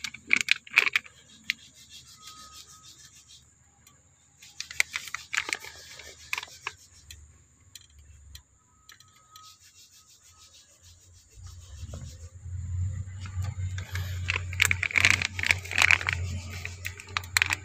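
Clear plastic parts bag crinkling and rustling in the hand in irregular bursts. From about eleven seconds in, a low steady hum rises under it.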